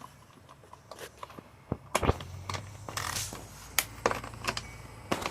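Hand tools on a lawn mower's bolted housing: irregular metal clicks and scrapes, with a louder clatter of knocks about two seconds in.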